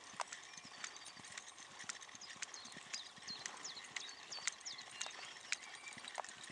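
Hoofbeats of a horse loping on a sand arena, soft and uneven footfalls.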